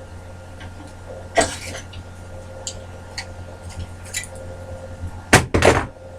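Cut pieces of metal clinking and knocking as they are handled, with one knock about a second and a half in and two louder clinks near the end, over a steady low hum.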